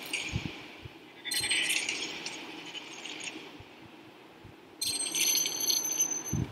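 Animated logo intro sound effects: two bright, hissing bursts with high ringing tones, one about a second in and a longer one near the end, with faint clicks between.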